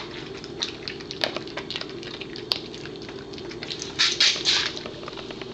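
A dog crunching and chewing a dehydrated sweet potato stick. It comes as a run of small crisp crunches, with a denser, louder cluster about four seconds in.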